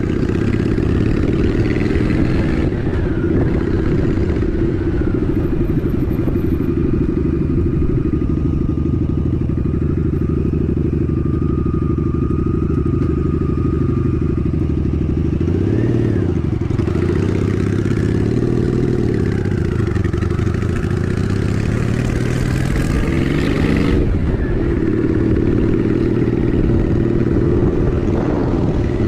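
Honda Shadow 750 ACE's V-twin engine running under way, heard from the rider's seat. The engine note falls and climbs again about halfway through, and later rises and drops off sharply a few seconds before the end.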